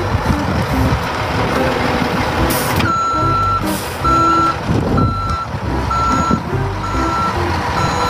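Toy cement mixer truck playing its built-in sound effects: a recorded truck engine running, and from about three seconds in a reversing beep repeating about once a second.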